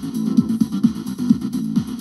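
Background electronic dance music with a steady beat, about two beats a second.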